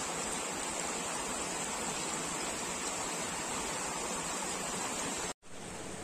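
Steady rushing of a flowing mountain stream. It cuts out for a split second about five seconds in, then goes on slightly quieter.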